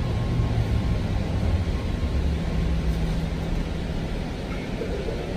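Low, steady rumble of a BART Fleet of the Future train, heard from inside the car as it rolls slowly into a station.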